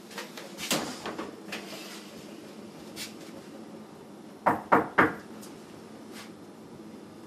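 Refrigerator door pulled open with a cluster of clicks, then things handled on its shelves, with three sharp knocks in quick succession a little past halfway.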